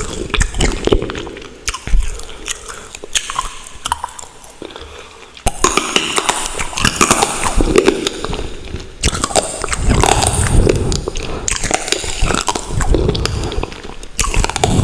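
Close-miked chewing and wet mouth sounds of eating Buldak carbonara instant ramen noodles, a dense run of small clicks. It is quieter for a few seconds, then busier from about five seconds in.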